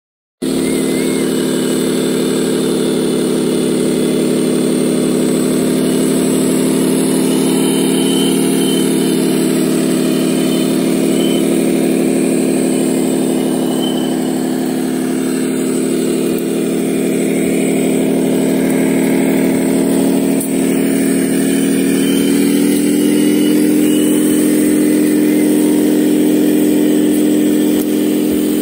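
A steady engine-like drone made of a stack of low hums, which steps up a little in pitch about 22 seconds in.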